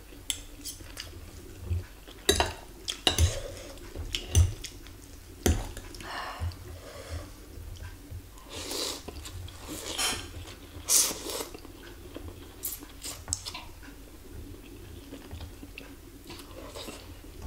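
Fork and spoon clinking and scraping against a ceramic bowl, with chewing and noodles being slurped in short noisy pulls.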